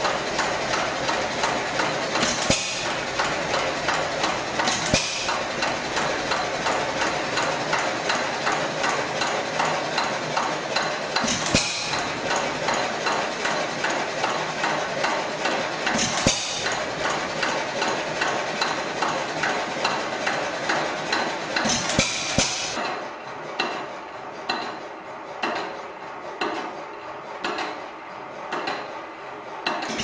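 Hit-and-miss stationary engine running: a fast, regular mechanical clatter, broken every few seconds at uneven gaps by a louder burst as it fires. After about twenty-three seconds the whole sound becomes quieter.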